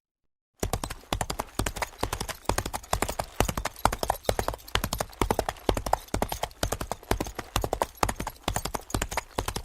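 Horse hooves clip-clopping in a fast, steady run of hoof strikes, starting abruptly about half a second in.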